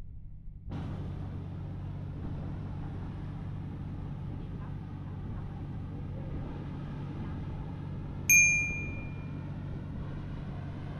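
An engine runs with a steady low hum. Shortly after the start a steady wider noise joins it. About eight seconds in there is a single bright metallic ding that rings for about a second.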